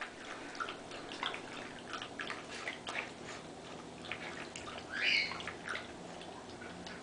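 A Yorkshire terrier puppy lapping water from a plastic bowl: quick, irregular wet laps and small splashes, several a second. A brief, slightly louder sound comes about five seconds in.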